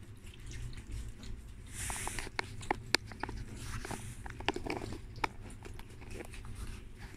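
Three-week-old German Shepherd puppies lapping goat milk from a shallow tray: irregular small wet clicks and smacks from several mouths at once.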